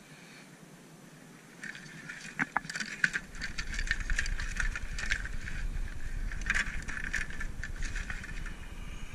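A hand rummaging through fishing tackle and plastic lure packages in a plastic bucket: irregular clattering and crinkling that starts about a second and a half in. A low rumble on the microphone comes in about a second later.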